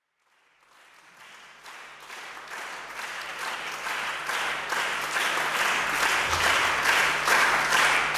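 Concert audience applauding, fading in from silence and growing steadily louder, the clapping settling into an even rhythmic beat.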